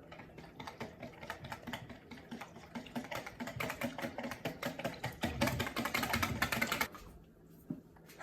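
A knife chopping quickly on a cutting board, a fast run of sharp taps that gets louder and denser about five seconds in, then stops about seven seconds in.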